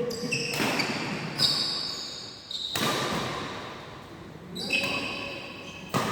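Badminton rally: rackets striking the shuttlecock with sharp hits about every second and a quarter, with players' shoes squeaking on the court between shots.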